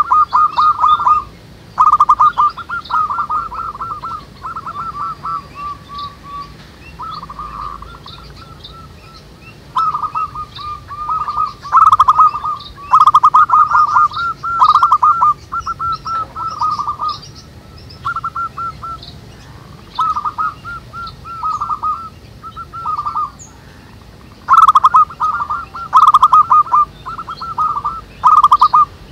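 Several zebra doves cooing in overlapping bouts, each a quick run of soft staccato notes, with short pauses between phrases. Fainter high chirps from small birds sound in the background.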